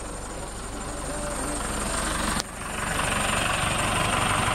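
John Deere tractor's diesel engine running steadily, heard close by. It cuts out for an instant about halfway through and comes back louder.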